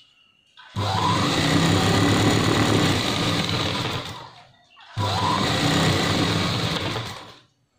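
Domestic sewing machine stitching at speed in two runs with a short stop between: the first starts about a second in and lasts some three seconds, the second lasts about two and a half seconds. It is hemming the folded edge of a cloth strip.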